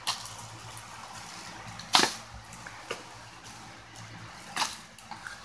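Cardboard firework boxes and plastic-wrapped sparkler packs being handled and set down, a few separate sharp knocks and crinkles with the loudest about two seconds in.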